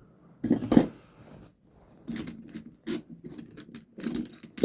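Loose metal hand tools clinking and clattering as they are handled, in a string of irregular knocks and rattles, the loudest about half a second in.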